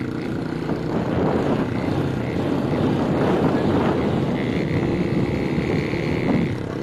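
Small motorcycle engine running steadily at road speed, with wind rushing over the microphone.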